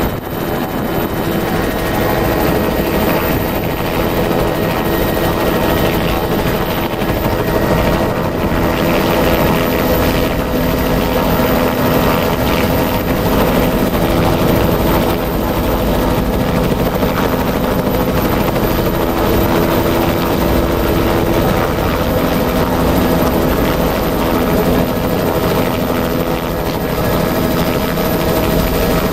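Helicopter engine and rotor running steadily and loudly, heard from inside the cabin as the helicopter lifts off.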